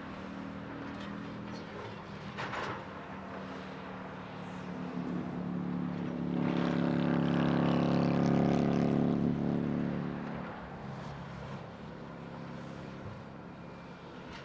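Volvo excavator's diesel engine running, revving up louder for about four seconds in the middle and then dropping back to a steady run. A brief knock comes about two and a half seconds in.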